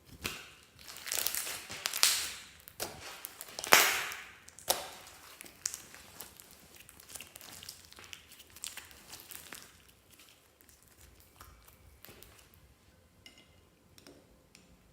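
Clear slime with eyeshadow mixed in, being squished and worked by hand. It crackles and makes sticky pops, loud and dense for the first five seconds or so, then softer scattered crackles and clicks.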